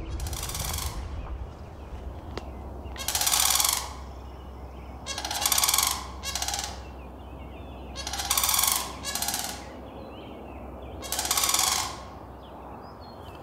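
Sandhill cranes calling: about seven loud calls, each under a second, every couple of seconds, some in quick pairs.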